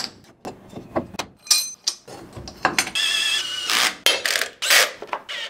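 Metal engine parts being handled and fitted together as a single-cylinder motorcycle engine's cylinder goes on over its piston. There is a quick series of clicks and metallic knocks, with a longer scraping, sliding metal sound about three seconds in.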